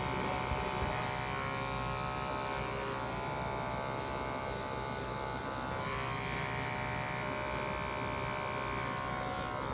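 Electric pet grooming clippers running steadily with a constant, even hum, clipping a schnauzer's coat.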